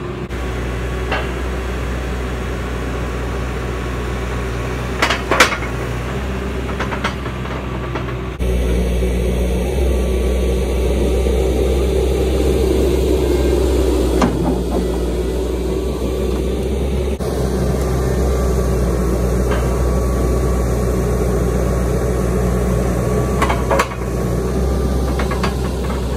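Bobcat T650 compact track loader's diesel engine running steadily, louder from about eight seconds in, with several sharp metal clanks as the bucket is unlatched from the quick-attach coupler and pallet forks are put on.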